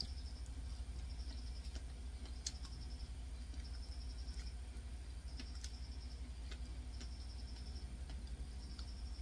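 Chewing and small mouth clicks from eating a soft, ripe fig, with scattered sharp ticks, over a steady low hum.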